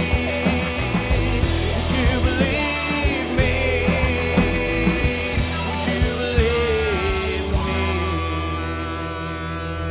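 Rock band playing live in the studio: drum kit, bass and electric guitars under a sung lead vocal. The drums stop a little before eight seconds in, and a held chord rings out, slowly fading.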